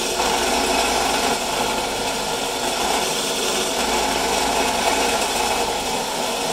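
Benchtop drill press motor running steadily while its bit bores holes through a wooden picture frame.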